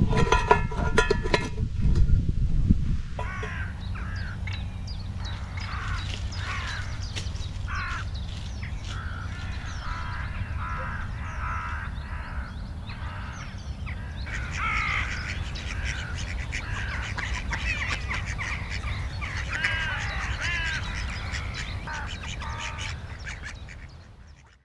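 A flock of birds calling over and over, many short overlapping calls, over a steady low rumble. In the first second or two, a short metallic clatter from a camping cook pot on its stove.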